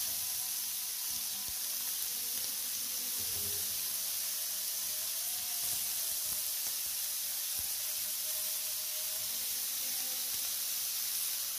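Minced-beef kebabs frying in an oiled grill pan: a steady sizzling hiss.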